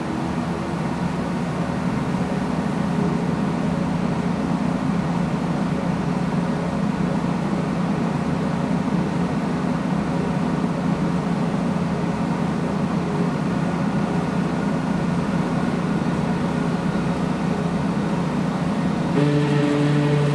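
CT scanner gantry running during its daily QC warm-up, a steady whirring hum with a held low tone that grows a little louder over the first few seconds. Near the end it changes suddenly to a louder, lower-pitched hum.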